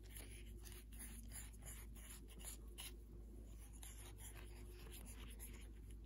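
Faint, irregular scratchy rasps and rustles of red embroidery floss and a needle being drawn through cross-stitch fabric.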